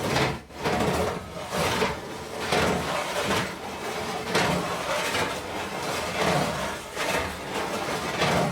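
Metal sheets sliding and scraping against each other in repeated strokes, each swelling and fading roughly once a second.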